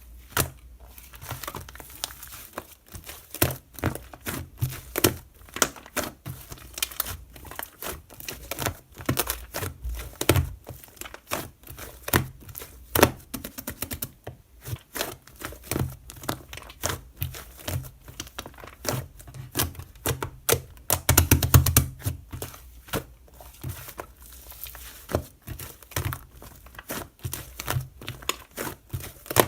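Close-up crinkling and crackling of something being handled by hand, with dense irregular clicks and a louder burst of handling about 21 seconds in.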